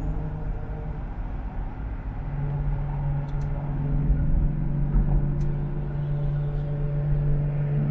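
Aston Martin's engine drone and road rumble heard from inside the cabin while cruising in traffic. The engine note eases off for a couple of seconds near the start, then comes back steady and stronger.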